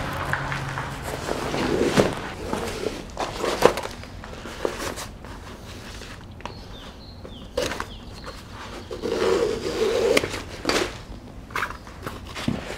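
Rustling and scraping of a nylon boat bag and the PVC boat skin being handled on a plastic tarp, with footsteps and a few sharp clicks from the bag's strap buckles.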